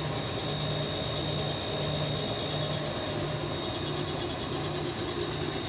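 Steady machinery hum with a low throb that swells and fades about once a second, and a thin steady high tone above it.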